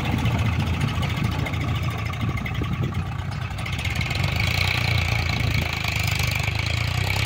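Swaraj 735 FE tractor's diesel engine running steadily as it pulls a trailer through a shallow stream.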